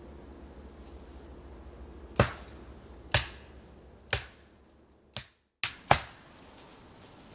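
Blows of a hand tool on wood: five sharp strikes roughly a second apart, each with a short ringing tail.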